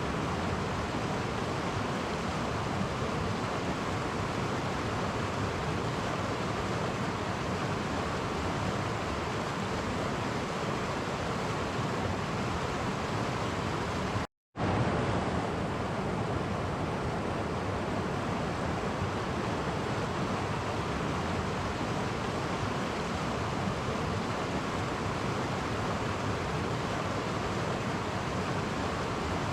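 Clear stream flowing over small cascades: a steady, even rush of water. About halfway through, the sound cuts out completely for a split second and then resumes.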